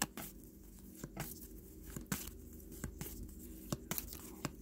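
Trading cards being flipped through by hand: soft, irregular clicks and slides as cards are moved across the stack, over a faint steady hum.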